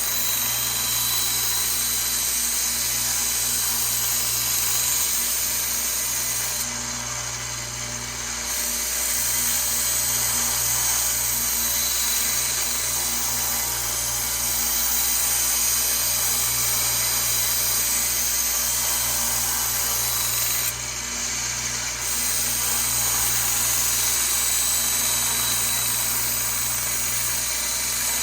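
Harbor Freight 1x30 belt sander running steadily with a 400-grit belt, with a steel butcher-knife blade ground against it to take out nicks and reshape the edge. The motor hum is steady under a high grinding hiss, which dips briefly twice.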